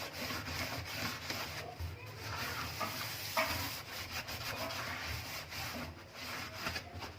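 Scouring sponge scrubbing a kitchen tap with cleaner: a rough rubbing in uneven strokes, working off rust and grime.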